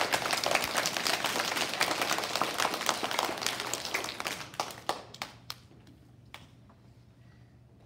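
Audience of schoolchildren clapping. The applause thins out about four and a half seconds in and ends with a few scattered claps, leaving a faint steady hum.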